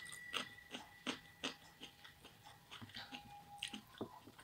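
Faint mouth sounds of a person chewing food eaten by hand: a string of soft, irregular clicks and smacks.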